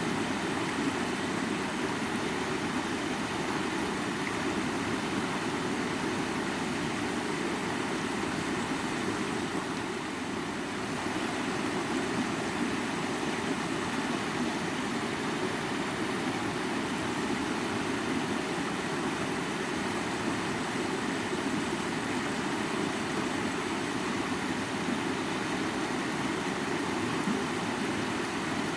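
Steady rushing of a flowing mountain river, an even wash of water noise that is fullest in the low-middle range.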